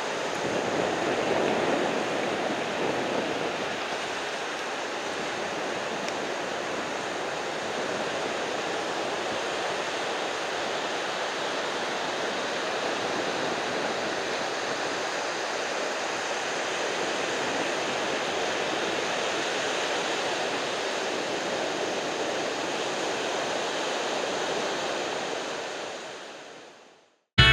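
Ocean surf: a steady wash of breaking waves, fading out near the end.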